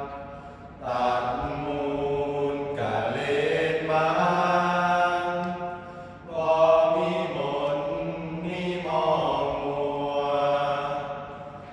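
Male voices chanting Thai Buddhist sarabhanya verse together: long, melodic held notes sung in phrases, with short breaks for breath just before one second in and again around six seconds.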